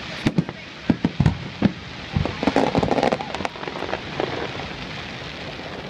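Aerial fireworks shells bursting in quick succession: a string of sharp bangs, then a denser run of crackling pops about two seconds in, thinning out toward the end.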